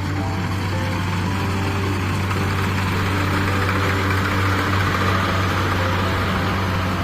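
Kubota DC70 combine harvester's diesel engine running steadily with a constant low hum, and a rushing noise from the machine that swells in the middle.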